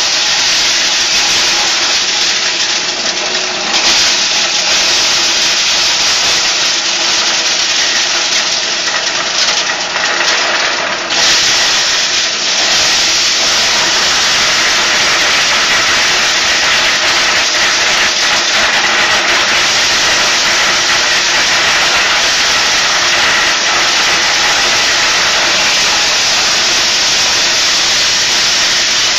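Electric two-inlet corn sheller running under load, stripping kernels from cobs fed in by hand. It makes a loud, steady, dense noise with a faint motor hum beneath. The noise dips briefly about eleven seconds in.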